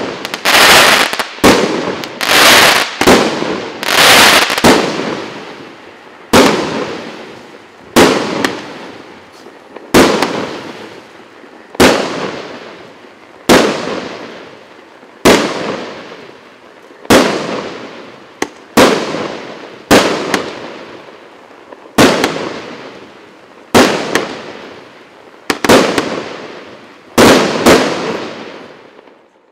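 A 19-shot, 1.2-inch firework cake firing its shots. A quick run of bangs comes in the first few seconds, then single bangs follow about every two seconds, each trailing off before the next.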